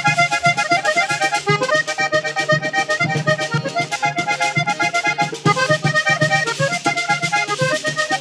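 Vallenato music played live: a Hohner Corona III button accordion runs a quick melody over a caja hand drum and a guacharaca scraper keeping a steady beat.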